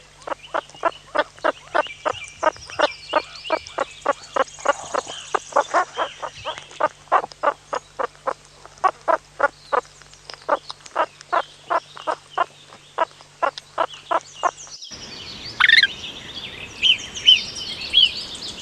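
Groundhog calling in a rapid run of short, sharp calls, about three a second. About fifteen seconds in, the calls stop abruptly and a few higher, thinner chirps follow.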